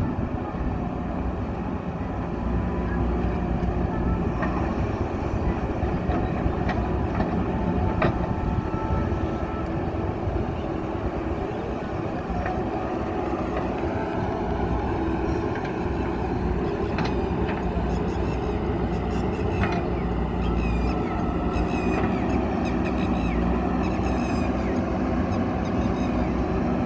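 JCB backhoe loader's diesel engine running steadily under work, with a few scattered knocks.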